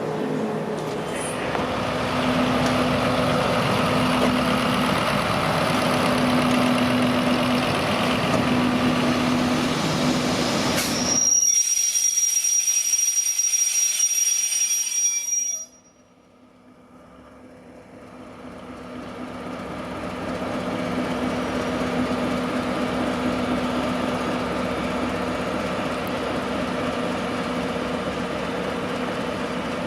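Train running on the rails, heard from on board: a steady rumble with a pulsing hum. About 11 seconds in the low rumble drops away and a thin high tone holds for about four seconds, then the sound cuts out suddenly and swells back to a steady running noise over the next few seconds.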